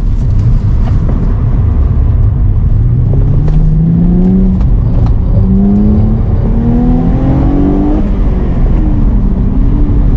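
Mercedes SLK 280's naturally aspirated 3.0-litre V6 accelerating hard over a steady low rumble. The engine note climbs in pitch in a few successive pulls from about three seconds in, then falls away about eight seconds in.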